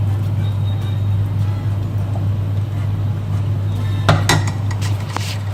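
A steady low hum, with a few short clinks of a utensil against the pan about four seconds in and again near the end.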